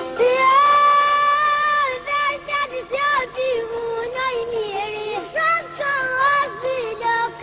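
Music: a high voice sings an Albanian song, entering with one long held note, then carrying on in short, lively melodic phrases over instrumental accompaniment.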